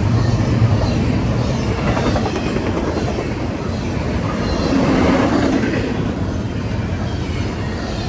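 Intermodal freight train's double-stack container cars and trailer-carrying flatcars rolling past: a steady rumble and clatter of steel wheels on the rails, swelling a little about five seconds in.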